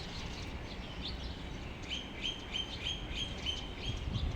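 Many small birds chirping in a tree, scattered short high calls, with one bird repeating a quick note about three times a second for a couple of seconds midway. A low rumble of wind noise runs underneath.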